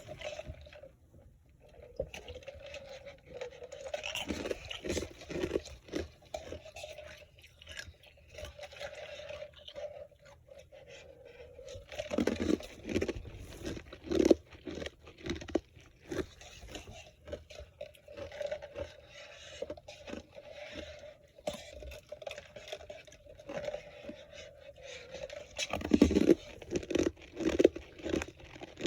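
A person biting and chewing ice in irregular crunches, with clusters of louder bites about twelve seconds in and again near the end. A faint steady hum runs underneath.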